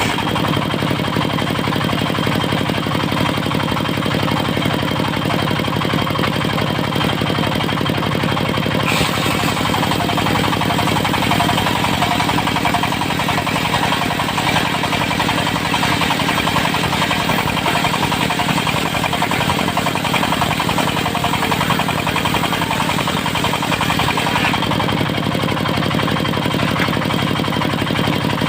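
Diesel engine of a mobile circular-saw sawmill running steadily at a constant speed.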